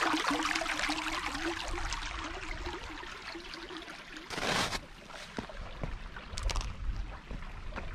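A creek running and trickling over its bed, with a louder rustling burst a little past four seconds in and a few short knocks after it.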